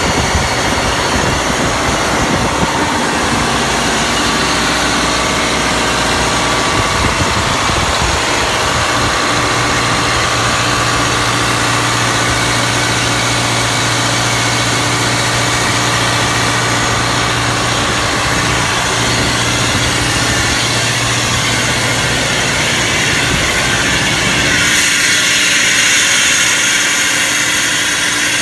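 Detroit Diesel 8V92TA two-stroke turbocharged V8 diesel running steadily, driving a Sullair 850/250 drilling air compressor. About 25 seconds in, the low rumble drops away and a loud hiss takes over.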